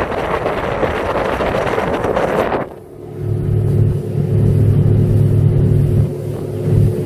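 Boat under way with a Mercury 80 EFI outboard. A loud rush of wind and water cuts off suddenly about two and a half seconds in, leaving the outboard's steady low drone.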